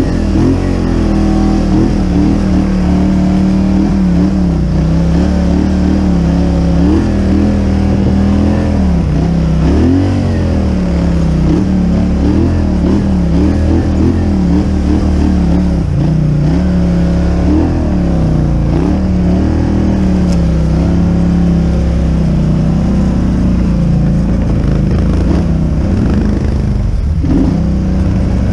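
A quad bike's engine running under changing throttle, its pitch rising and falling every second or two.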